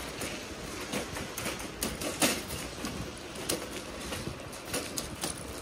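Loaded supermarket shopping trolley rolling across a car park, its wheels and wire basket rattling with a steady clatter of irregular clicks.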